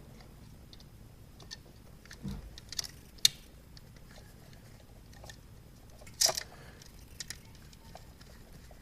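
Scattered small clicks and taps of hands and tools working the wiring of an electrical outlet as the ground wire is fitted, with a low knock about two seconds in and the sharpest click a little after six seconds.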